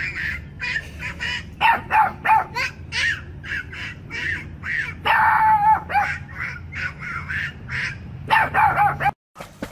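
A Boston terrier barking in a rapid run of short, hoarse barks, several a second, with one longer drawn-out call about five seconds in, until the sound cuts off just after nine seconds.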